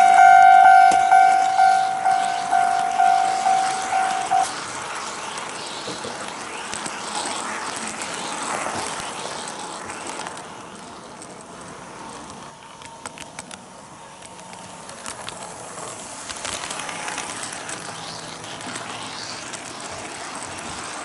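A toy level-crossing warning signal dings electronically about twice a second and cuts off about four seconds in. After that an HO-gauge model train runs along the track with a light rattle and a few sharp clicks.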